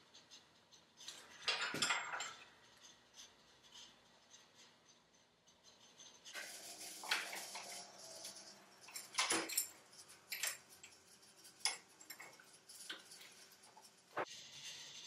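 Scattered metal-on-metal clinks and knocks as steel sockets, a steel bar and the bender's steel plate are handled on a bench vise. A few clinks come close together near the start; after a pause, a string of them follows, some ringing briefly.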